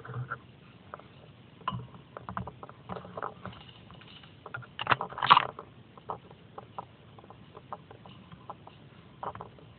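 Footsteps and twigs crackling in dry leaf litter, with branches brushing past, making irregular clicks and crunches. A louder burst of crackling comes about five seconds in.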